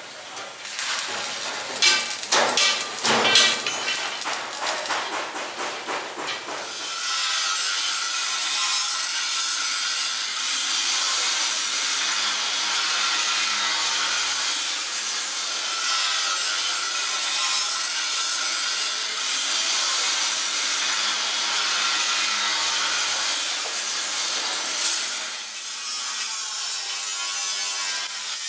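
Knocks and clatter of sheet-metal work on a bus body for the first several seconds, then a steady, loud rasping hiss that runs through most of the rest and dips briefly near the end.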